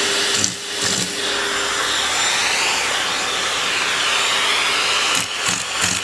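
Vacuum cleaner running steadily, with a few short knocks near the end.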